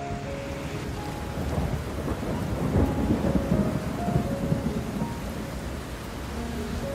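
Thunder rumbling over steady rain, swelling to its loudest about halfway through and then easing off.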